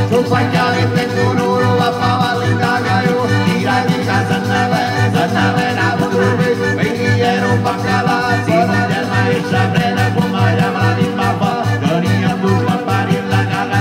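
Live folk band playing a quick dance tune: accordion and acoustic guitar over a steady, fast beat on a tamburo frame drum.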